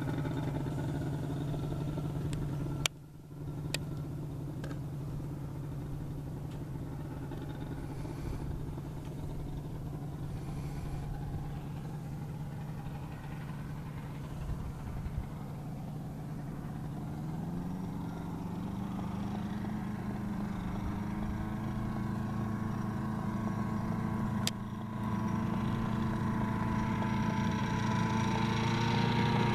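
CGS Hawk ultralight's engine and propeller running steadily as the plane taxis. About two-thirds of the way through, the engine speeds up and its pitch rises, and it grows louder near the end.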